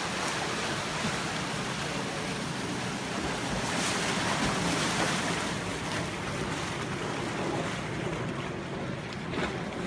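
Ocean surf washing in and out of a rocky channel on the shore, a steady rush that swells louder about four seconds in and eases off near the end.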